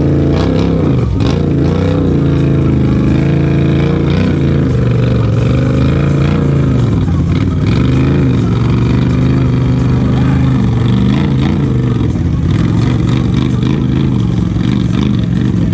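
ATV engine running hard under load in deep mud, its pitch rising and falling with the throttle.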